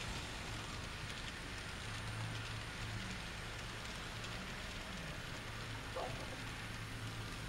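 N scale model grain train's hopper cars rolling past on the track: a steady fine rattling patter of small wheels on the rails, with a low steady hum underneath.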